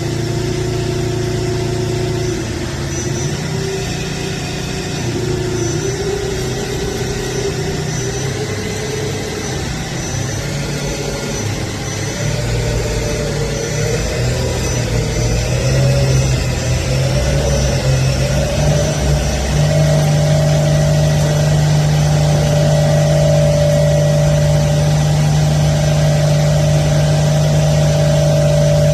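CNC lathe running a G71 profile roughing cycle: the spindle and its drive give a steady machine hum whose pitch shifts up and down in steps as the cut goes on, settling higher and steadier for the last third.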